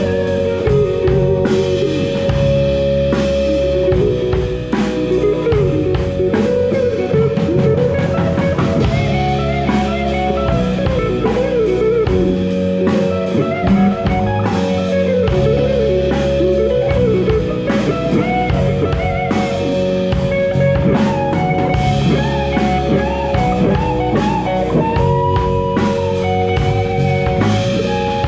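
A band playing a slow blues-rock instrumental: electric guitars, one a hollow-body archtop, over a drum kit. A lead guitar line of bent, wavering notes runs over held chords.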